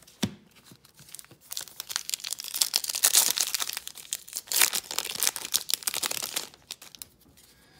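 Foil wrapper of a hockey-card pack being torn open and crinkled in the hands. The dense crackling starts about a second in, is loudest midway, and stops near the end.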